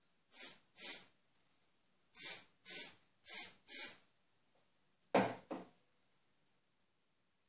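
Aerosol hairspray can sprayed in six short hisses, two and then four in quick succession. About five seconds in comes a single knock with a brief rattle.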